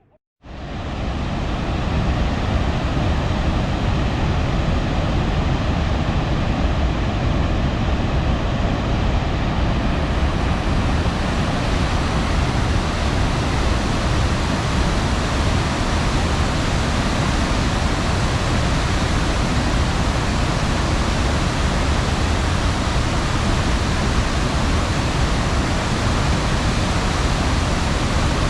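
Waterfall: a steady rush of falling water that starts abruptly and reaches full level within about a second.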